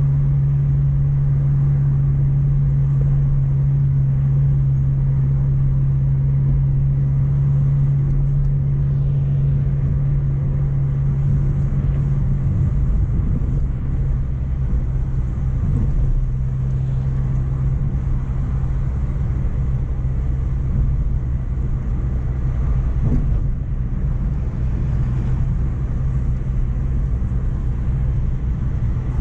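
Mk1 Renault Clio driving along a road: a steady engine drone over low road rumble. The engine note shifts slightly about twelve seconds in.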